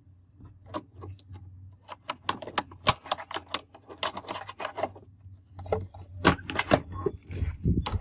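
Irregular metallic clicks and rattles as a small padlock is unlocked with a key and worked out of a steel door hasp, followed by louder knocks as the old sliding door bolt is drawn back and the wooden door opens.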